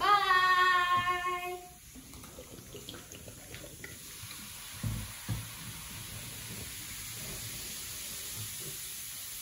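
A child's voice is held for about two seconds at the start. Then vinegar is poured from a plastic bottle onto baking soda in a homemade volcano, and the foam fizzes with a faint steady hiss as the reaction gives off carbon dioxide. Two low knocks come about five seconds in.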